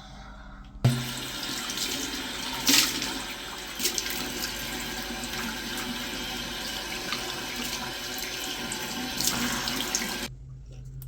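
Water running from a tap into a sink: turned on suddenly about a second in, flowing steadily, and shut off near the end.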